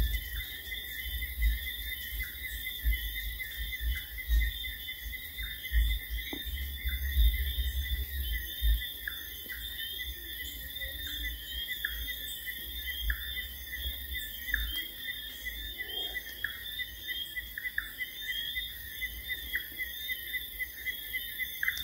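A steady insect chorus buzzing at several high pitches at once, like crickets, in wet vegetation after rain. A short falling call repeats about once a second, mostly in the second half, over low rumbles on the microphone.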